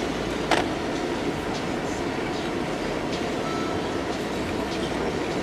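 Steady road and engine noise inside a moving car's cabin, with a single sharp knock about half a second in.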